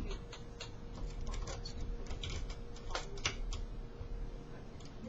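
Light, irregular metallic clicks of a lock pick and tension wrench working the pins of a Chubb Lips five-pin padlock, with the clicks thinning out after about three and a half seconds.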